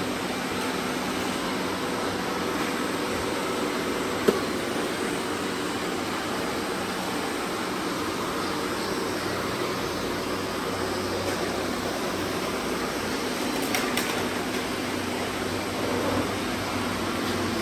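Robot vacuum cleaners running, a steady whirring hum of suction fans and brushes. A single sharp click about four seconds in.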